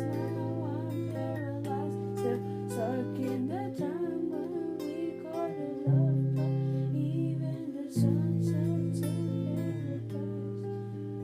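Acoustic guitar playing held chords with a moving bass line, under a wordless sung or hummed melody that wavers in pitch. Harder strums come about six and eight seconds in. The voice drops out near the end, leaving the guitar ringing.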